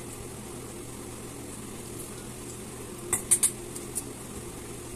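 Steady low room hum, then a little over three seconds in three quick light clinks of a spoon against a dish, followed by one fainter tick near four seconds.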